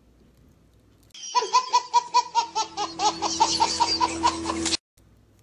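A baby laughing hard, in rapid rhythmic peals about five a second. It starts suddenly about a second in and cuts off abruptly near the end.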